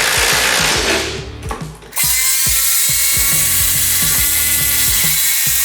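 Brushless cordless impact drivers hammering at full speed. The sound drops away about a second in and comes back about a second later, over background music.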